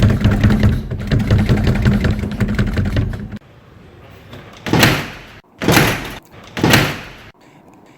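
A fast rattling buzz over a low hum for about three and a half seconds, cutting off suddenly, then three short whooshing hisses, each swelling and fading.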